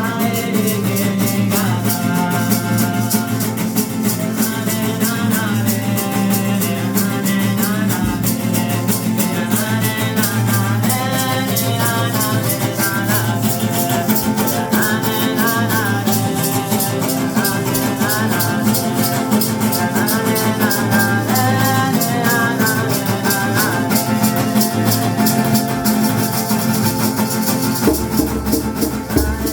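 Ceremonial healing song: singing over a hand rattle shaken in a fast, even rhythm.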